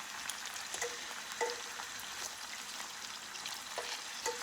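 Chicken tenders frying in hot melted chicken fat (schmaltz), a steady sizzle with crackling and a few sharp pops.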